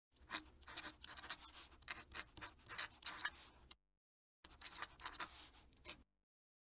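Fountain pen nib scratching across paper in quick cursive strokes. There is a short break just before the middle, then a second run of strokes that stops near the end.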